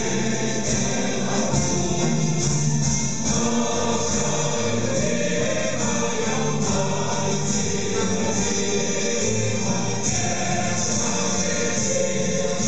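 A large choir singing with instrumental backing over a concert sound system, heard from within the crowd.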